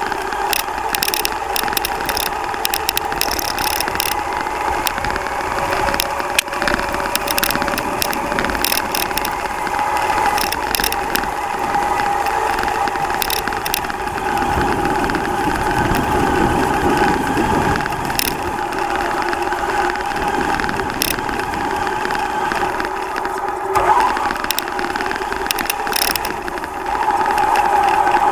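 Traxxas Slash Ultimate RC truck driving, heard from a camera mounted on the truck: its electric motor and drivetrain give a steady whine, with frequent sharp clicks and rattles from the chassis.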